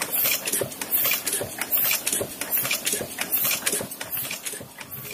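Heidelberg GTO 52 offset printing press running: a steady mechanical clatter with a hiss that repeats a little more than once a second, one beat per sheet cycle.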